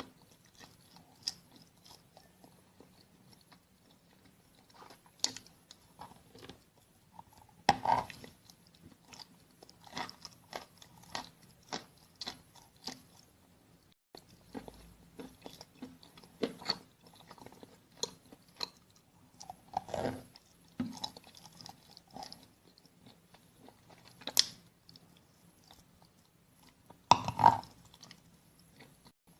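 A person biting and chewing wet clay in irregular bites and chews, the loudest about eight seconds in and again near the end.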